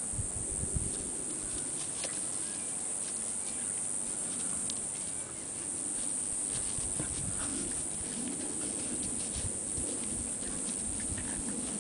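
A rat terrier and a pit bull play-fighting, with low, wavering play growls and a few scuffling thumps, over a steady high-pitched hiss.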